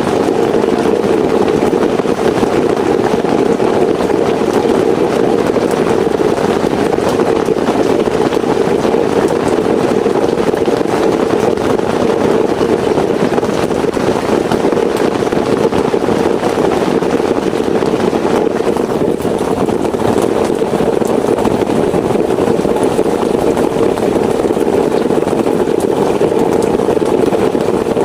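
Heavy rain falling steadily: a dense, unbroken hiss with a full, low drumming body.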